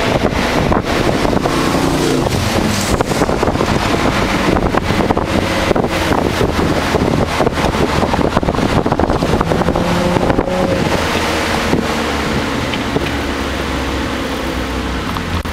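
Nissan Altima SE-R's V6 engine heard from inside the cabin under way, its pitch rising and falling with the throttle, over steady road and wind noise. It grows somewhat calmer in the last few seconds.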